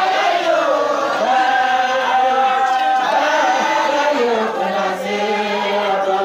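A group of voices chanting a devotional song together in long, held notes that slide up and down in pitch.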